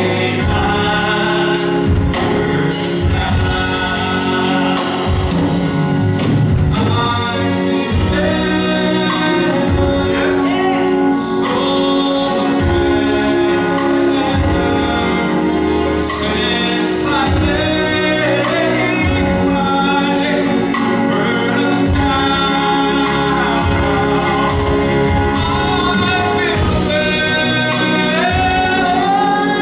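Gospel music: singing voices over a band with a steady drum beat.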